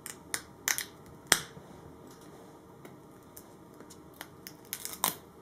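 Fingers and a fingernail clicking and picking at the plastic shield pivot and levers of a motorcycle helmet, peeling off dried Plasti Dip: scattered sharp little clicks, the loudest about a second and a half in, and a quick run of them near the end.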